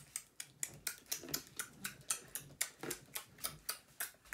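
A plastic lotion bottle being worked in the hands, making a quick, even run of clicks at about five a second.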